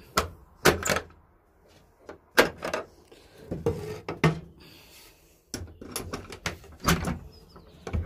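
Wooden hatch of a pigeon loft being opened by hand into the aviary: a series of sharp wooden knocks and rattles, spread out with quieter gaps between them.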